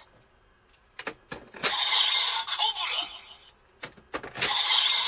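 Plastic clicks as Evolbottles are pushed into a DX Evol Driver toy transformation belt, each insertion followed by the belt's electronic voice call and sound effects from its built-in speaker. The first bottle goes in about a second in and the second near four seconds in.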